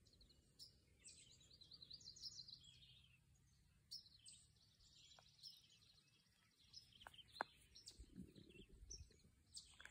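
Faint outdoor birdsong: several birds chirping, with a quick trill in the middle. A few soft thuds near the end.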